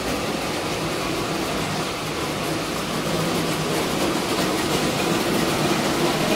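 Model trains running on the layout's metal track, a steady rumbling whir that grows a little louder toward the end.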